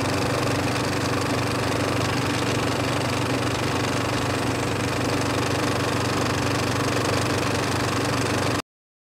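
Film projector running, a steady mechanical whirr and clatter as the countdown leader plays; it cuts off suddenly near the end.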